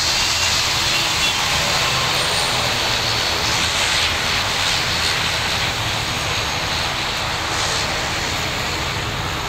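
An IndiGo ATR 72 turboprop's two engines at takeoff power during its takeoff roll: a steady, loud propeller drone with a low hum underneath.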